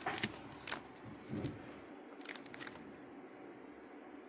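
Packaging of a diesel heater being handled during unboxing: a few faint clicks and crinkles, with a soft bump about a second and a half in, then quieter near the end.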